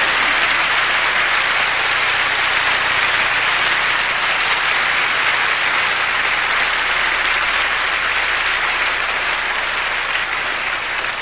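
Large audience applauding steadily, a sustained ovation that eases slightly near the end.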